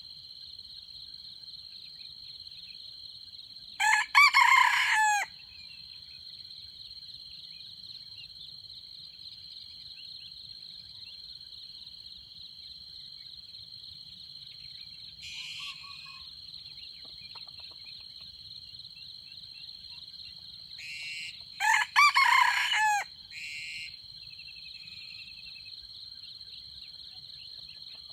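Red junglefowl rooster crowing twice, each a short crow about 17 seconds apart, over a steady high drone of insects. A few fainter short bird calls fall between the crows.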